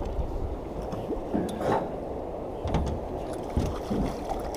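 Steady low rumble of water and wind on the boat, with a few brief knocks.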